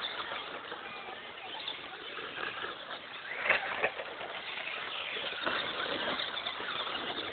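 Electric radio-controlled off-road cars running on a track, a steady mix of electric motor whine and tyre noise, with a sharp knock about three and a half seconds in.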